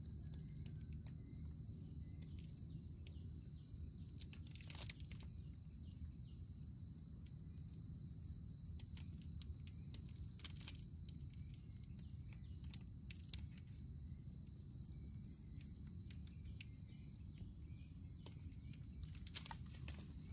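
Steady high-pitched chirring of an insect chorus, over a low background rumble, with a few faint clicks from something being handled.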